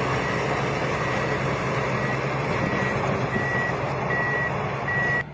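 A heavy snow-clearing machine's engine running steadily while its reversing alarm beeps evenly, about one beep a second. The sound cuts off just before the end.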